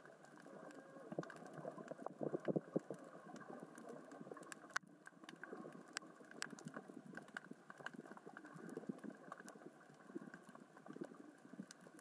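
Underwater crackling and clicking of small rocks rolling across the sea floor in the current, with a louder cluster of clicks about two seconds in.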